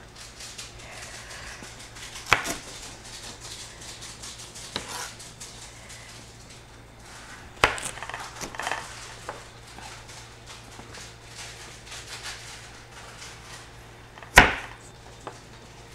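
A kitchen knife slicing raw sweet potato into thin strips, with small clicks and soft handling of the pieces. The blade knocks sharply on the cutting surface three times, about 2, 7.5 and 14 seconds in.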